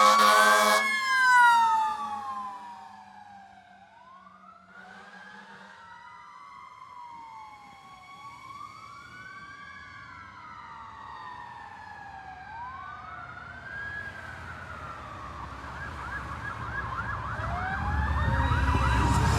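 Fire apparatus warning devices. An air horn blast cuts off just under a second in, while a Federal Q2B mechanical siren winds down with its pitch falling slowly, over an electronic siren wailing up and down every few seconds. Near the end a fast yelp comes in and the truck's engine grows louder.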